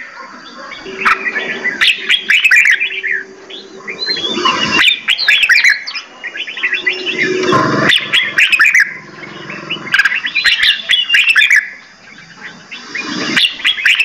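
Several caged songbirds singing and chirping, with bursts of rapid, varied warbling song every two to three seconds and short quieter gaps between.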